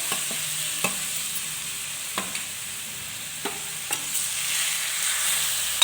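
Date and raisin paste frying in hot ghee in a kadhai, with a steady sizzle. A spoon knocks against the pan about five times as the paste is stirred.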